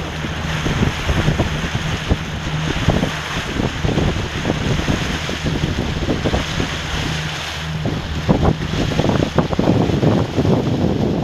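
Strong wind buffeting the microphone in irregular gusts over the wash and splash of water around a sailing dinghy.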